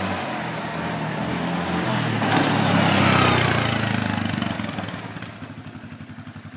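Quad bike (ATV) engine revving as it drives, rising to its loudest about three seconds in, then dropping back to a low, even putter near the end.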